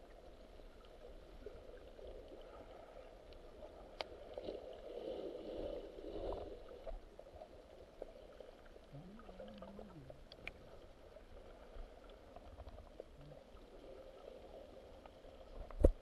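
Muffled underwater ambience picked up by a camera held beneath the sea surface: a faint, steady wash of water with a few small clicks, ending in two loud knocks.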